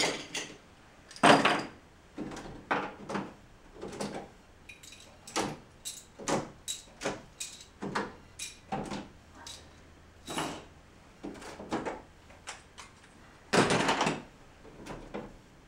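Lego bricks being pulled apart and handled while a model is taken down by hand: irregular sharp plastic clicks and clatters, the loudest about a second in and near the end.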